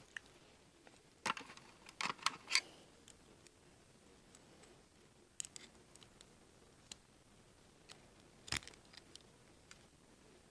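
Faint handling noise: scattered small clicks and taps, a quick cluster of them between one and three seconds in, and one sharper knock about eight and a half seconds in.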